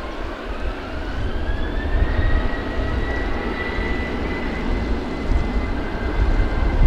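Jet airliner's turbofan engines spooling up for takeoff: a whine rising in pitch over about two seconds, then holding steady over a deep rumble.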